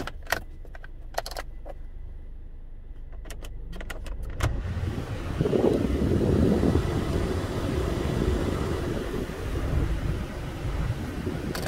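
A few clicks from the dashboard controls, then the car's heater blower fan comes on about four and a half seconds in and runs as a steady rush of air from the vents, over the low hum of the idling engine.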